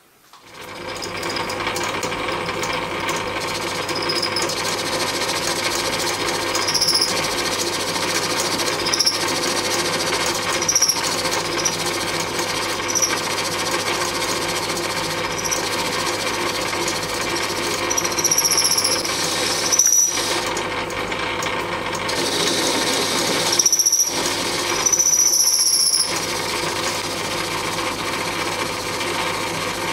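Metal lathe motor starting up and running steadily while a boring bar counterbores a hole in the spinning workpiece. Short high-pitched squeals from the cut come and go every couple of seconds.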